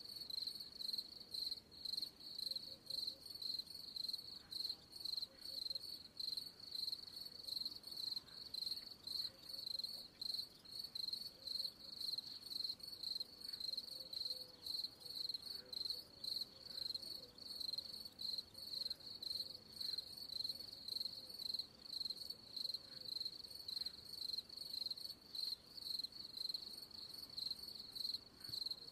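Crickets chirping in a steady, even rhythm of high pulses that runs on without a break.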